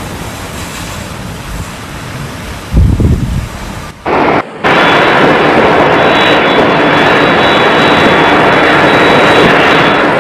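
Typhoon wind and driving rain: gusty wind over the microphone with a low thump a little under three seconds in, then, from about four seconds, a loud, steady roar of storm wind and rain with a faint high whine in it.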